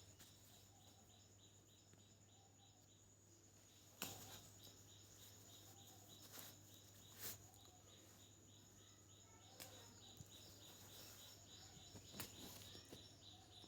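Near silence: faint room tone with a low hum, a faint rapid chirping repeating evenly in the background, and a few scattered faint clicks.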